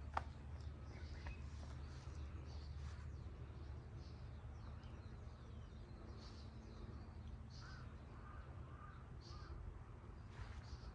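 Faint bird calls, several of them, over a steady low outdoor rumble, with one sharp click just after the start.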